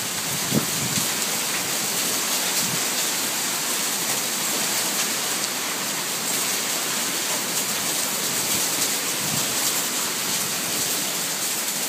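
Hail and heavy rain pelting down in a storm: a dense, steady hiss with a few sharper strikes, one of them about half a second in.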